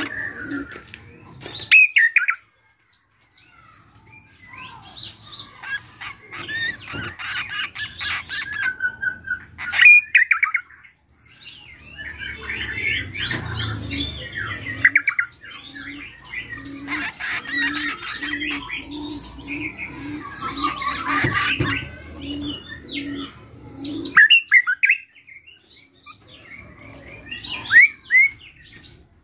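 Caged drongo (srigunting krantil) singing in bouts of quick, varied chirps, whistles and squeaky phrases, its mixed, mimicked song, with short pauses between bouts. A low note repeats about twice a second in the background through the middle of the song.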